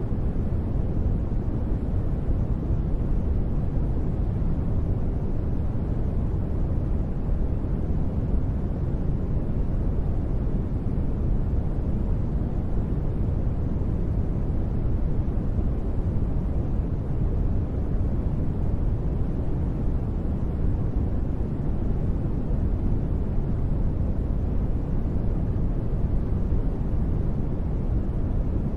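Continuous sleep noise from a noise generator: a steady, even hush with no tones, weighted toward the low end so it sounds deep and muffled rather than hissy, with no changes or sudden sounds.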